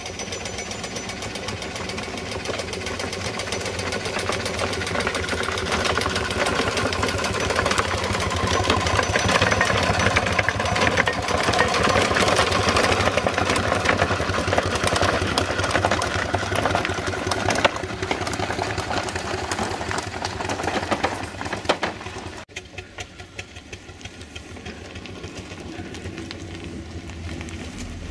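Miniature steam traction engine running along a gravel track, its exhaust chuffing in a fast, even beat. It grows louder as it comes close and passes, then turns suddenly quieter and more distant about three-quarters of the way through.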